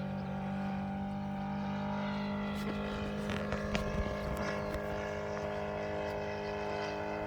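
The Saito FG-60R3 three-cylinder four-stroke radial petrol engine of a large model Westland Lysander drones steadily in flight at an even pitch. A few faint clicks come about halfway through.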